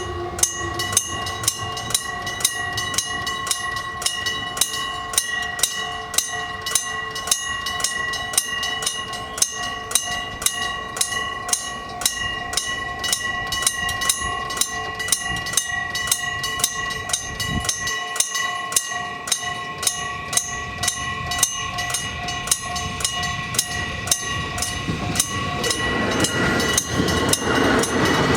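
Japanese level crossing warning bell ringing its steady, repeating 'kan-kan' at about two strokes a second. Near the end a train's rumble comes in and grows louder under it as the train approaches.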